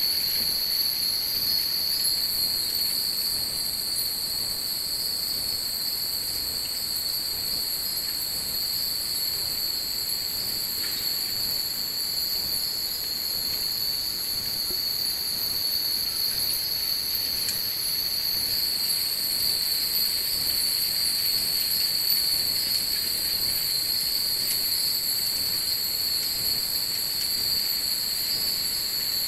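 Dense, steady high-pitched shimmer from hundreds of hanging furin wind chimes, with two high pitches held throughout and a third that steps higher about two seconds in.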